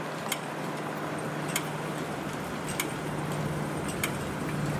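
Road traffic at an intersection: a steady low hum of vehicle engines and tyre noise. A sharp, high tick repeats about every second and a quarter, four times.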